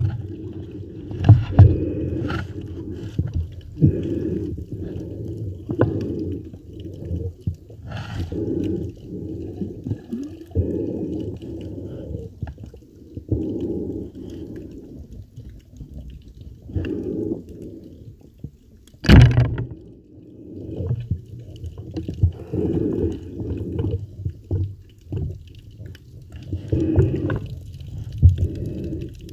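Muffled underwater noise of a diver swimming: uneven low swishes and surges of water every second or so, with a few light clicks and one sharp knock about 19 seconds in.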